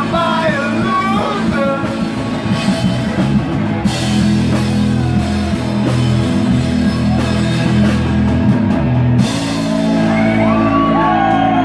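Rock band playing loud: a sung line in the first couple of seconds, then an instrumental stretch of held chords with cymbal crashes about four and nine seconds in, and sliding vocal cries coming back near the end.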